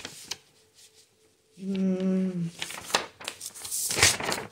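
Sheets of paper rustling and crinkling as they are handled and turned, loudest near the end, with a short closed-mouth hum from a woman about a second and a half in.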